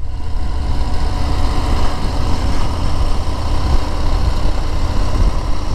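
Harley-Davidson Road Glide ST's V-twin engine running steadily while cruising, mixed with wind rush over the microphone as a steady low rumble.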